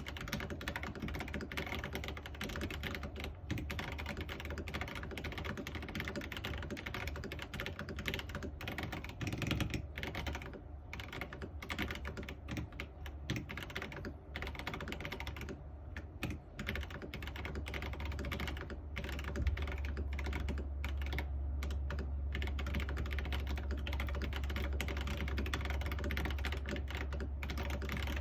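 Fast, continuous typing on a 3D-printed Alice-layout mechanical keyboard with stock Bubble Gum switches, Durock stabilizers and Cubism keycaps, the keystrokes clacking densely without pause. A steady low hum grows stronger about two-thirds of the way through.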